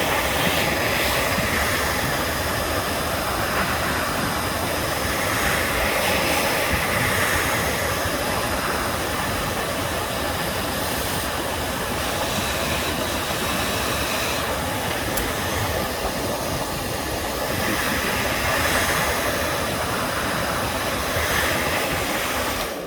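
Handheld hairdryer blowing hot air in a steady, loud rush, swelling slightly now and then before it is switched off at the end. It is heating old varnish on wood veneer to soften it for scraping.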